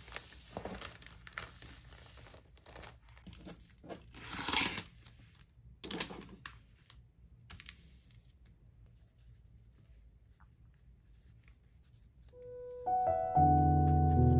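Clear plastic cellophane sleeve rustling and crinkling as it is handled and pressed flat, with louder crinkles about four and six seconds in. After a quiet stretch, background music starts near the end.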